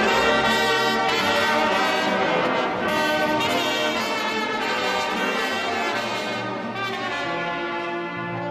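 Brass band music, several horns playing held, overlapping notes, growing gradually quieter.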